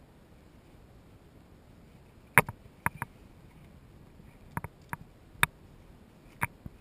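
Sharp clicks and knocks of boots and gear against rock as a person shifts about on a rocky ledge, about ten of them in loose clusters starting a couple of seconds in, the first the loudest, over a faint steady hiss.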